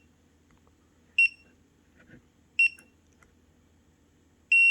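Foxgard biometric door lock's electronic beeper sounding two short high beeps about a second and a half apart, then a longer beep starting near the end, as the lock reads fingerprint presses while a new fingerprint is being enrolled.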